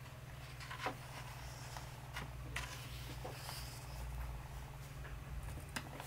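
Pages of a hardcover photobook being turned and handled with cotton-gloved hands: soft paper rustling with a few light clicks and taps, over a faint steady low hum.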